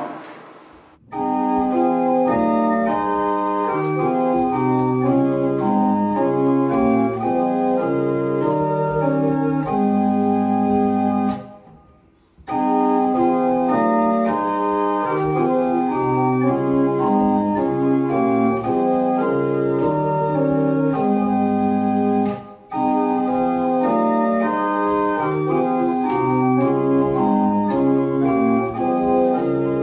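Small wooden chamber organ playing a slow piece in several parts with long sustained notes, starting about a second in. It pauses briefly between phrases about eleven seconds in and for a moment again later.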